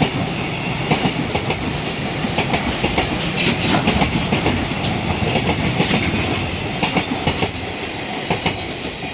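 A train passing close by at a level crossing, its wheels clacking over the rail joints in a run of repeated sharp clicks over a steady rumble. The sound eases off slightly near the end.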